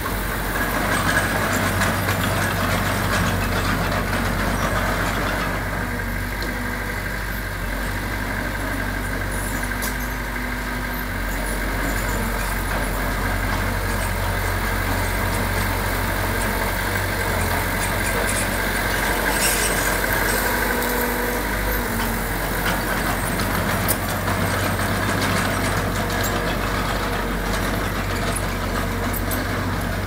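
Diesel engine of heavy earthmoving machinery running steadily at an even pitch.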